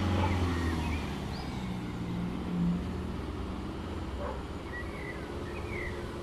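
A vehicle engine's low hum fading as it moves away, with a few short bird chirps.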